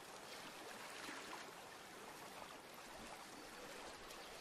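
Faint, steady hiss with no distinct tones or events.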